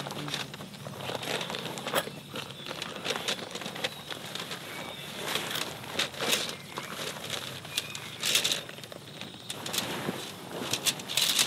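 Heavy tent fabric rustling and crumpling as it is pulled from its carry bag and unfolded by hand, in irregular bursts, with louder rustles about six, eight and eleven seconds in.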